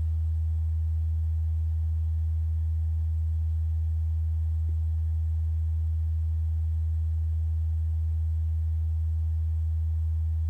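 Steady low-pitched hum, one constant tone that never changes, with nothing else heard over it.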